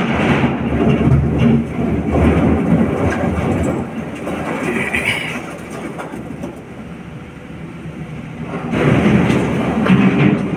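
Excavator bucket digging into a pile of broken quarry rock, with rock crunching and clattering over the running diesel engine. Near the end, a loaded bucketful of rock clatters down into the dump truck's steel tipper body.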